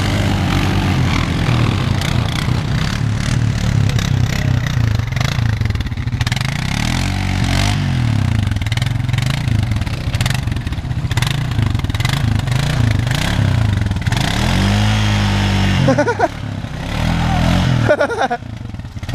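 Honda Foreman ATV's single-cylinder engine revving in repeated rising and falling surges, working hard through deep mud ruts.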